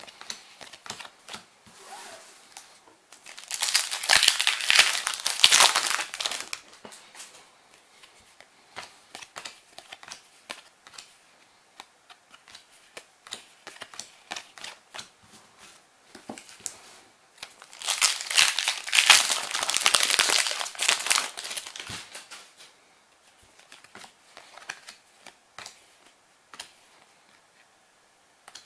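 Foil Yu-Gi-Oh booster packs crinkled and torn open, twice: once about three seconds in and again near eighteen seconds in, each lasting a few seconds. Between them come light rustles and clicks of trading cards being handled and flicked through.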